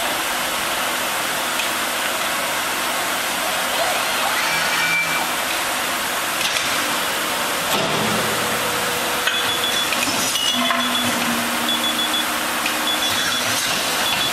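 WELLISH C/200 D cold-chamber aluminium die-casting cell running, a steady hissing machine noise from the machine and its robotic extraction cell. From about nine seconds in, short high beeps repeat several times.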